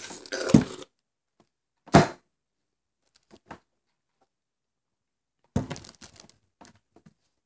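Wet tearing and crunching of watermelon flesh being bitten into during the first second, then a single sharp thunk about two seconds in. Near the end comes another thump with a few crackles as the watermelon slice is set down on the wooden table.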